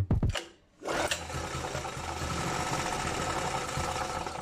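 The restored generator's small four-stroke gasoline engine running steadily for about three and a half seconds. It cuts in about a second in and dies away at the very end.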